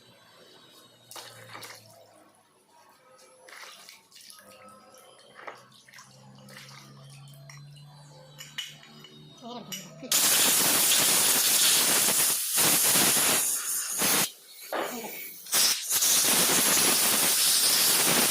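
Faint clicks and handling noise, then about ten seconds in a loud, steady hiss of rushing air or spray begins, cutting out briefly three times.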